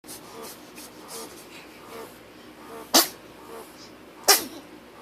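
Two short, sharp sneezes about a second and a half apart, the second coming about four seconds in.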